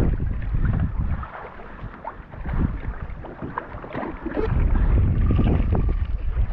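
Wind buffeting the microphone while water slaps and splashes against a plastic sit-on-top kayak's hull in choppy swell. The wind rumble drops away about a second in, leaving scattered splashes, and comes back strongly for the last couple of seconds.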